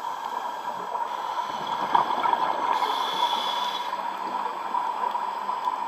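Underwater sound from a scuba diver's camera: a steady bubbling, muffled water noise, with a regulator breath hissing for about a second roughly three seconds in.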